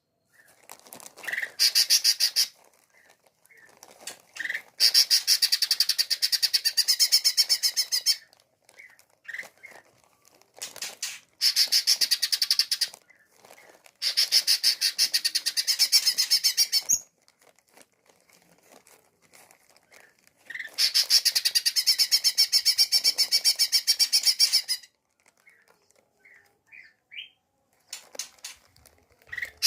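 Bird-luring call of the 'cak ranting' (cak ijo) bird: about five rapid, rattling high-pitched trills lasting one to four seconds each, with short single chips between them.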